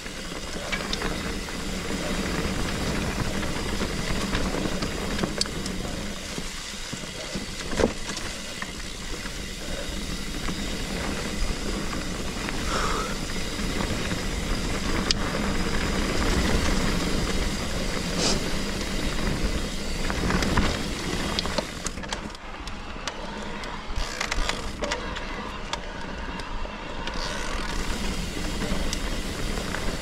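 Trek Rail 7 electric mountain bike riding a dirt trail: a continuous rumble of tyres and wind with scattered sharp clicks and rattles.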